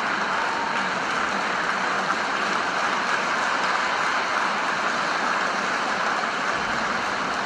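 Audience applauding steadily in an ice rink at the end of a figure skating program.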